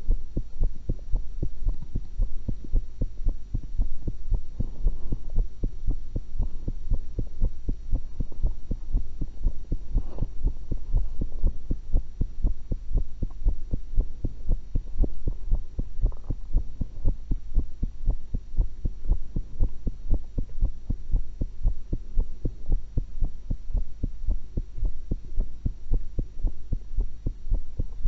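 Human heartbeat heard through a stethoscope on the chest: a steady, even run of low beats. A few brief, higher noises sound over it about five, ten and sixteen seconds in.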